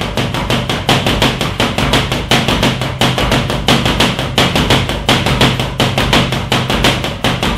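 Boxing gloves rapidly striking the padded ends of a wall-mounted spinning-arm boxing trainer, about six sharp hits a second, as the arm whirls around on its spindle.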